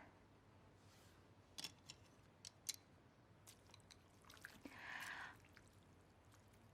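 Faint sounds of eating noodles: a few light clicks of chopsticks against a bowl, then a soft breathy sound about five seconds in.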